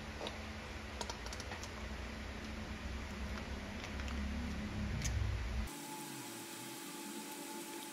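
Mayonnaise squeezed out of a plastic pouch onto chopped vegetables: faint crinkling of the pouch and small soft clicks. After about five and a half seconds the sound changes abruptly to a steady faint hum.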